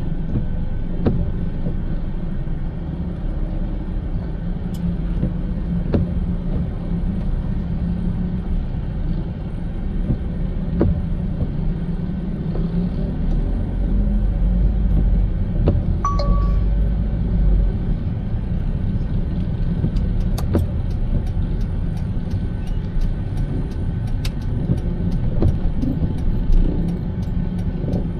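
Car driving, a steady low road rumble, with scattered sharp ticks, a short high beep about sixteen seconds in, and a run of quicker ticks from about twenty seconds.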